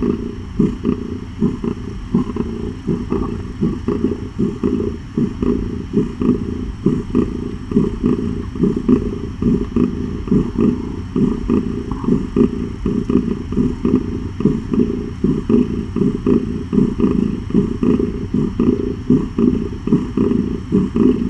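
Mother cat purring loudly while nursing her kittens: a continuous low rumble that swells and fades a couple of times a second.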